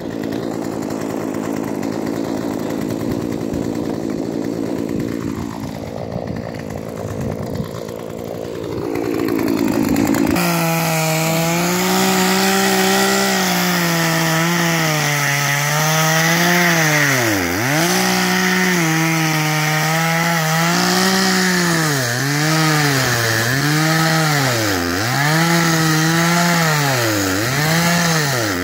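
A gasoline chainsaw running at high throttle as its bar cuts down into foot-thick pond ice. The sound is rough and noisy at first. From about ten seconds in it settles into a clear engine note that sags in pitch again and again, roughly once a second or two, and climbs back each time as the chain bogs in the ice and frees.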